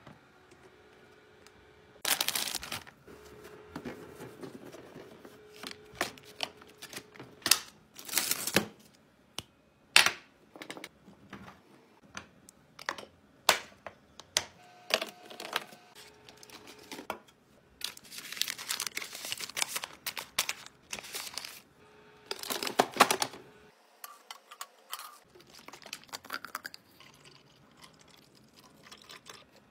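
Packaging crinkling and tearing in several bursts, between sharp clicks and knocks of items being handled and set down while a mini fridge is restocked.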